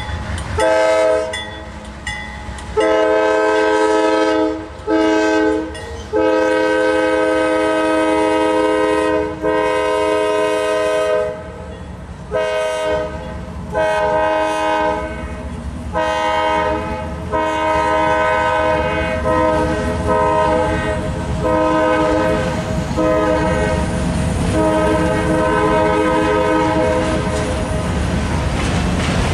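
Air horn on the lead locomotive of a Norfolk Southern freight, a GE Dash 8-40CW, sounding a long run of blasts, some long and some short, the pattern blown for a road crossing. Under it the low rumble of the passing diesel locomotives and autorack cars grows louder in the second half.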